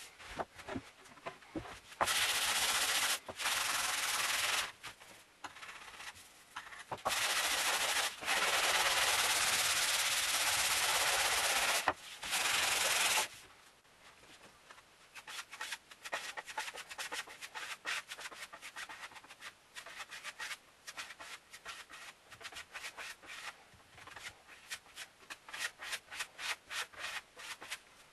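Sandpaper rubbed by hand over a worn wooden tabletop in long back-and-forth strokes. About 13 seconds in this gives way to quieter, rapid short scrapes of a putty knife spreading filler over the surface.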